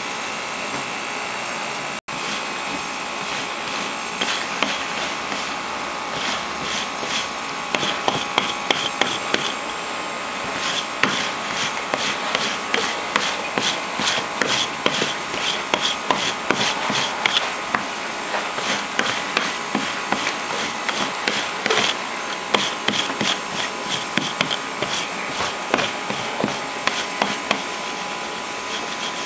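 Trousers being worked over on a counter: irregular short clicks and cloth rubbing over a steady background hiss.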